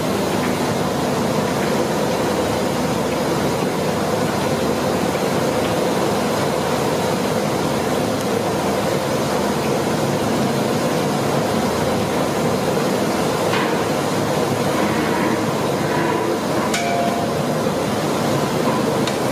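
Bread slices deep-frying in a large kadai of hot oil: a steady sizzle, with a couple of light clinks, likely from the slotted ladle, in the second half.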